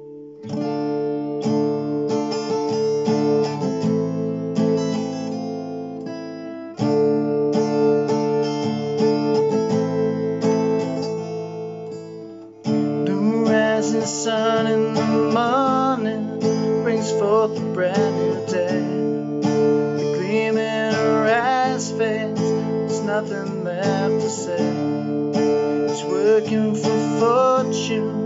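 Capoed steel-string acoustic guitar strummed in a steady chord pattern. The playing drops back and restarts about 7 and 13 seconds in, then gets fuller and busier.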